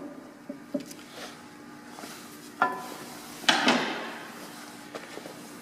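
Tools and small metal fittings being handled during assembly: a few light clicks, a sharper click, then a louder clatter with a short rustle.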